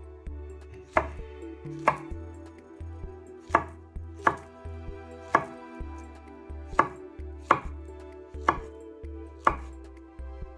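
Knife chopping fruit on a cutting board: about nine sharp cuts, roughly one a second and unevenly spaced.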